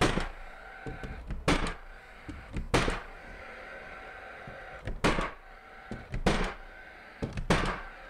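Nail gun firing nails through plywood sheathing into the wall studs: six sharp shots, one every one to two seconds.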